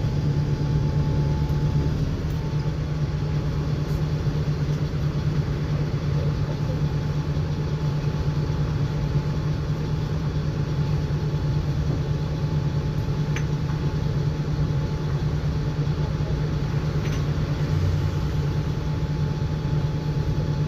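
Mercedes-Benz O-500M city bus with a Voith automatic gearbox, its diesel engine running steadily as a low, even drone that holds one pitch throughout.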